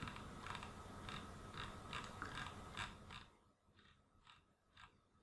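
Computer mouse scroll wheel clicking notch by notch as a web page is scrolled, faint ticks about two a second.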